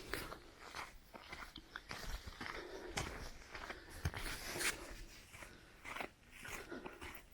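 Footsteps crunching on the path at a walking pace, about two steps a second.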